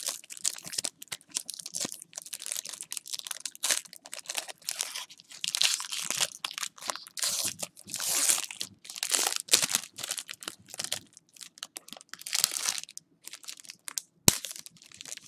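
Plastic wrapping on a sealed trading-card box being torn and crinkled off by hand, in many short, irregular crackling bursts. A single sharp click near the end.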